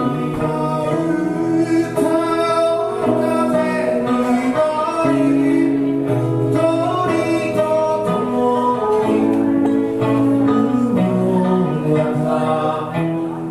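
Live Okinawan folk song (shimauta) played through the PA: a woman sings held notes into a microphone over a plucked-string accompaniment.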